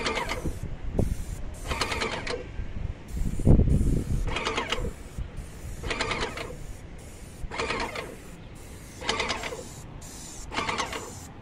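Airless paint sprayer working in regular mechanical bursts. Each burst is a quick clatter, and they come about every one and a half seconds. A heavy low thump comes about three and a half seconds in.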